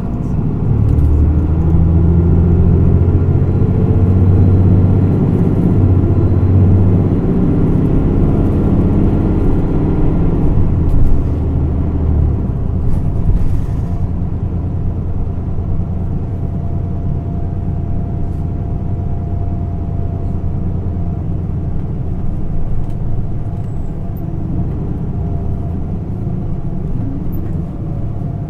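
Running sound of a 2010 Isuzu Erga PDG-LV234L2 city bus heard from inside the cabin. Its inline-six diesel engine drones loudest, with shifting pitch, through about the first twelve seconds, then runs more steadily and a little quieter. The air conditioning is running.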